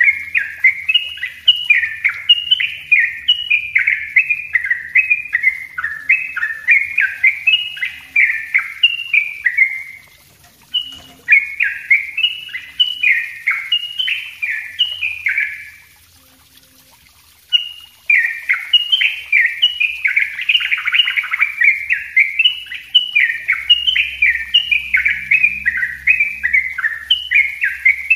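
Yellow-vented bulbul (trucuk) singing its fast, dense 'ropel rapat' song: quick runs of short downslurred notes, several a second. It comes in three long bouts, breaking off briefly about ten and about sixteen seconds in.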